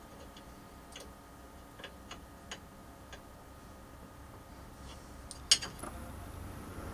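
Handling sounds: a copper tube and pump fittings being turned in the hands, giving a few scattered faint clicks and taps and one sharper click about five and a half seconds in.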